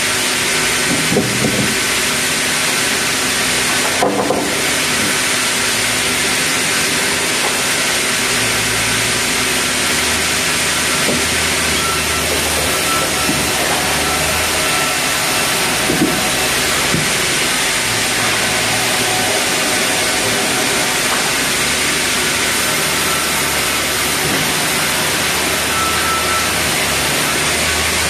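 Sawmill machinery running with a steady, loud hiss and hum, and a sharp knock about four seconds in and a duller one around sixteen seconds.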